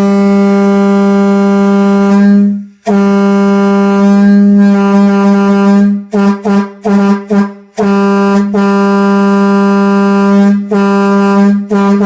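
Train air horn, a single trumpet blown from an air tank at about 140 psi: one steady low note, very loud, sounded in two long blasts, a run of short toots, another long blast, then more short toots.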